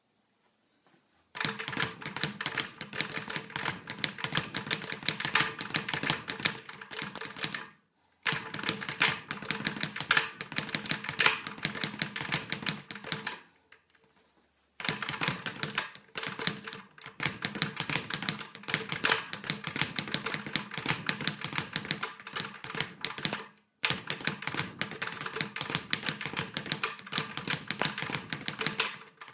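Leather speed bag being punched against a wooden rebound platform in a fast, continuous rattle of strikes, worked with triple-rhythm front circle punches. The drumming stops for a moment three times before starting up again.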